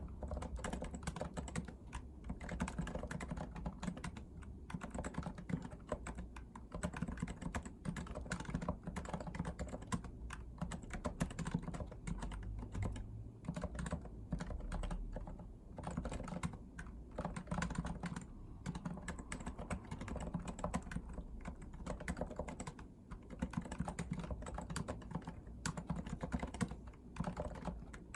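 Continuous typing on a REALFORCE R2 PFU Limited Edition keyboard with Topre electrostatic capacitive switches: a dense, unbroken run of keystrokes that thins only briefly now and then.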